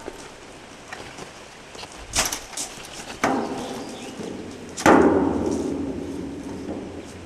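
A metal ladder clanking against the steel side of a freight boxcar as it is moved into place: a few sharp clacks about two seconds in, then a bang a little past three seconds and a louder bang near five seconds, each ringing out over a second or two.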